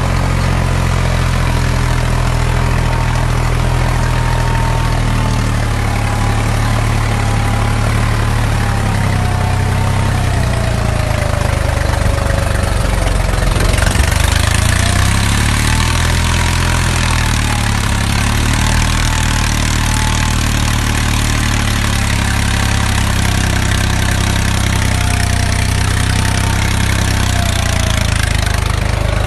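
Swaraj 963 tractor's diesel engine running steadily, with a fainter whine that wavers up and down in pitch. A hissing noise grows louder about halfway through.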